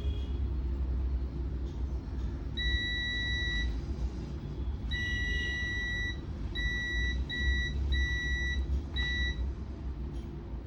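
Digital multimeter's continuity beeper sounding six times in uneven lengths, one long beep then shorter ones, as the probes test points on a monitor's switch-mode power supply board for shorts. A steady low background hum runs underneath.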